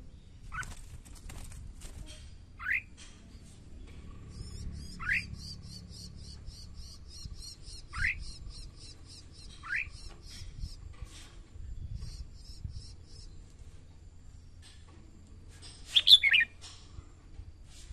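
Red-whiskered bulbul calling: short rising whistled notes every two to three seconds, then a louder, more complex burst of song near the end. A fast, high, evenly spaced ticking series runs behind it for several seconds in the middle.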